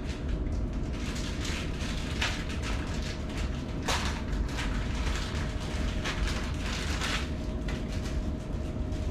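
SharkBite deburr and depth-gauge tool being twisted back and forth on the cut end of a half-inch copper pipe, so that it scrapes and rubs the copper in irregular strokes, the strongest about four seconds in. A steady low hum runs underneath.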